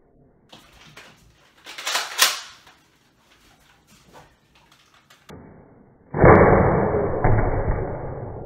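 A foam-dart Nerf blaster firing with a sharp whoosh about two seconds in, followed by a few light clicks. About six seconds in a loud, muffled boom starts suddenly and slowly dies away.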